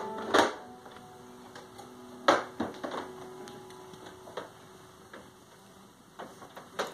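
A few scattered sharp clicks and taps, the loudest about two seconds in, over a faint steady tone that fades out about halfway through.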